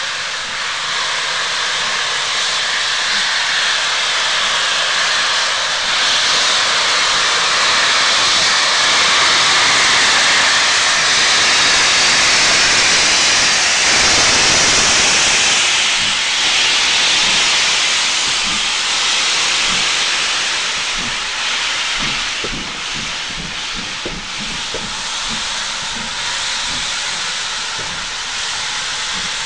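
GWR Manor-class steam locomotive No. 7822 moving past slowly with its cylinder drain cocks open, giving a loud, continuous hiss of escaping steam that is loudest about halfway through as the engine draws level. Short low thumps come through the hiss in the second half.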